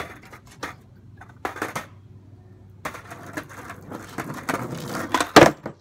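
A skateboard being ridden for a 50-50 grind attempt: a few sharp clacks, then about three seconds of wheels rolling and scraping, and a loud smack of the board about five seconds in.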